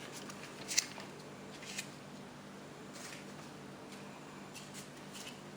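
A plastic RC quadcopter transmitter being handled: a few soft, scattered rustles and clicks, over a faint steady hum.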